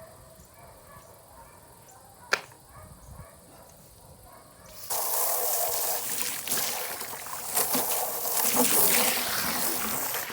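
A single sharp click, then water spraying hard, starting suddenly about halfway through and running loud and steady.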